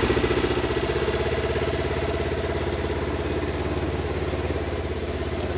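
Vehicle engine running steadily at idle with a fast, even pulse.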